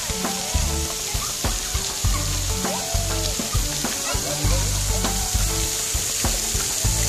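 Water jets of a splash pad spraying onto wet paving, a steady hiss.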